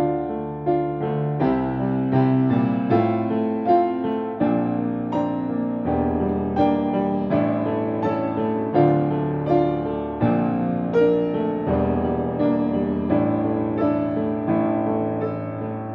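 Grand piano played slowly and softly: chords and single notes struck at a steady pace, each left to ring and fade, over low bass notes that change every couple of seconds.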